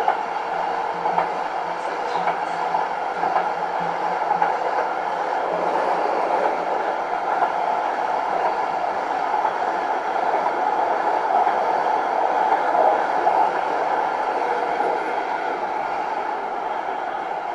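Munich P-series tram running along street track, heard from on board: a steady rumble of steel wheels on the rails and running gear. It grows a little louder around the middle and eases slightly near the end.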